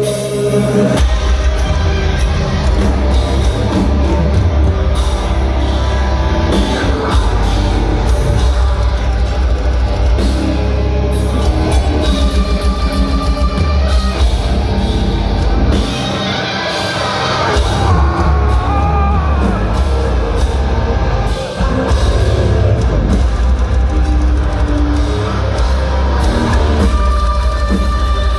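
Heavy metal band playing loud and live: pounding drum kit and heavy distorted guitars, with a short drop in the low end about two-thirds of the way through.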